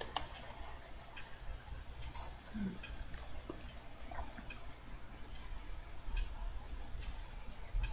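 Computer mouse clicking: scattered single clicks at uneven intervals as menus are opened, over a faint steady low hum.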